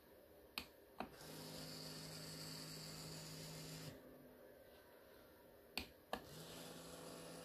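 Two clicks of a push button, then the small electric motor of an exhaust cutout valve actuator runs with a steady hum and thin whine for about two and a half seconds as it drives the butterfly fully open, and stops. Two more button clicks follow, and the motor starts again to run the valve closed.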